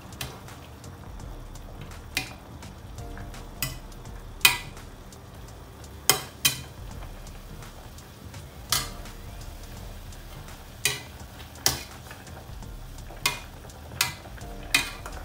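A long metal ladle stirring in an aluminium pot, clinking sharply against its sides about a dozen times at uneven intervals. Underneath is a low steady hum.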